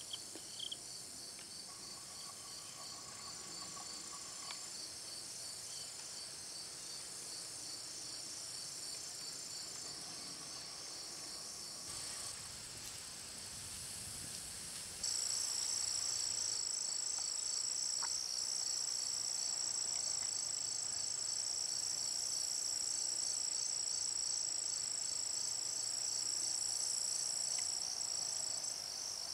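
Steady chorus of high-pitched insects trilling in rapid pulses, which jumps suddenly louder about halfway through.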